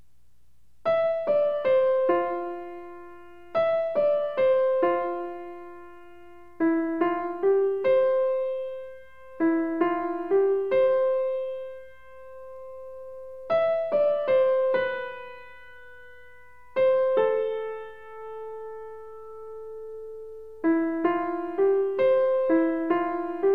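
Background music: a piano melody played in short phrases of a few notes, each note ringing out and fading before the next phrase.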